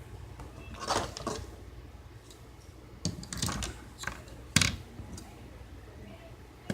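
Handling clicks and taps on the plastic housing of a Toyota radio touch-screen unit as it is worked on: a few clusters of sharp clicks, the loudest a single knock near the middle.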